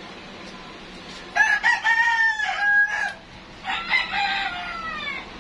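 A rooster crowing twice: a first crow of about two seconds with a choppy start and a long held note, then a shorter one that falls in pitch. A steady background hum runs underneath.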